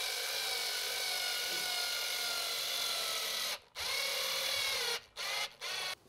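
Power drill driving screws into an electric guitar body. It runs with a steady whine for about three and a half seconds, stops briefly, runs again for just over a second, then gives two short bursts.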